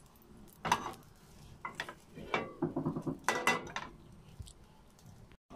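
Metal cookware clinking and knocking on a gas stove, in four short clusters, the sharpest about a second in.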